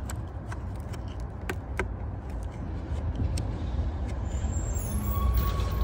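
Scattered small clicks of a flathead screwdriver turning the screw of the hose clamp on the air intake duct at the throttle body, loosening it, over a steady low rumble.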